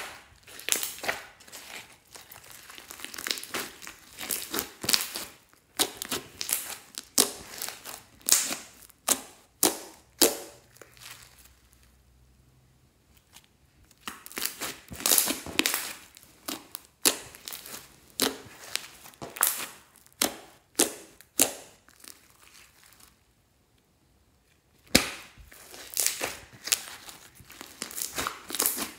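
Glossy slime being squished, folded and stretched by hand, making bursts of sticky clicks and crackling pops. The sounds stop twice for a couple of seconds.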